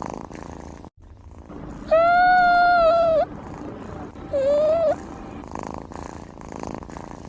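A cat purring steadily, with two drawn-out high meows: a long, nearly level one about two seconds in and a shorter one rising at the end a couple of seconds later.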